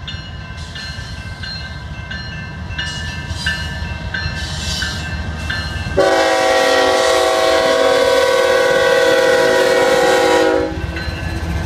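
Diesel freight locomotives approach with a low rumble while a bell dings about twice a second. About six seconds in, the lead BNSF locomotive sounds its horn, one long chord of several notes held for about four and a half seconds, then the engines and wheels rumble on as the locomotives pass.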